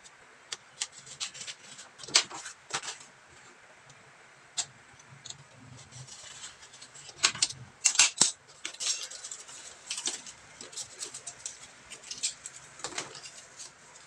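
Utility knife cutting cardboard along a steel ruler: sharp scraping strokes and clicks in two bursts, about two seconds in and again around seven to eight seconds. After that, lighter taps and rustles as the cut cardboard pieces are picked up and handled.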